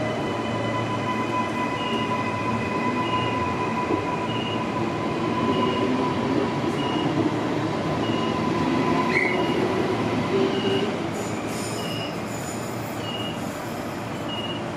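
Queensland Rail electric multiple-unit train standing at the platform, its onboard electrical equipment running with a steady whine over a low rumble. A short high beep repeats about every second and a quarter.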